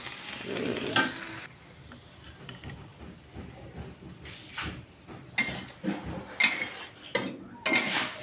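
Stir-fried napa cabbage sizzling in a wok as a metal spatula stirs it. From about halfway through come a string of sharp scrapes and taps of the metal spatula against a ceramic plate as the stir-fry is pushed into place.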